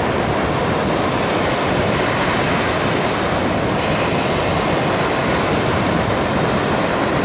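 Lake Michigan surf washing onto the beach in a steady, unbroken rush.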